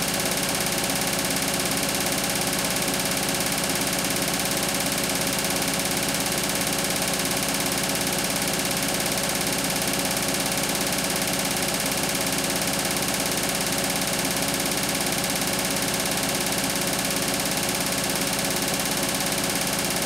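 Beko WTK104121W front-loading washing machine running with its drum turning at a constant speed: a steady motor whirr and hum with a fixed pitch and unchanging loudness.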